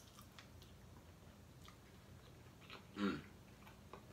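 A person chewing a chicken wing, with small wet mouth clicks scattered throughout. About three seconds in comes a brief, louder voiced sound from the eater.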